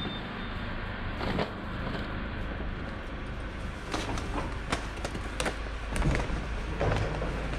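Loaded metal-framed utility cart rolling over a tiled floor: a steady rumble from its wheels with scattered sharp clicks and knocks.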